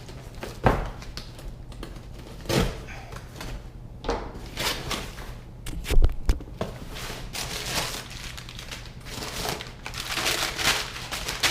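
Cardboard shipping box being opened and crumpled newspaper packing rustling and crinkling as it is pulled about, with a few sharp knocks, the loudest around the middle.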